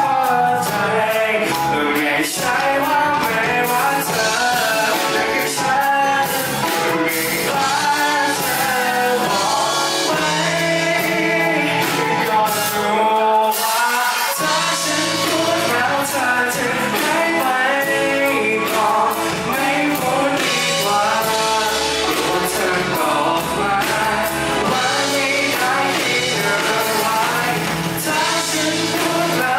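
A band playing a song live, with singing over it. About halfway through, the bass and drums drop out for a moment before the full band comes back in.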